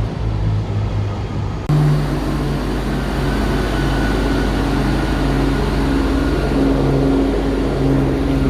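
Train noise on the rails, then a cut about two seconds in to a diesel train engine idling with a steady, even hum.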